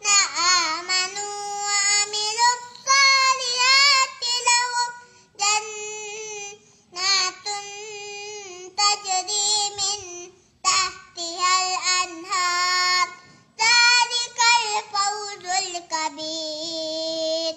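A young boy reciting the Quran (tilawat) in a high, melodic chant, holding long notes in phrases separated by short pauses.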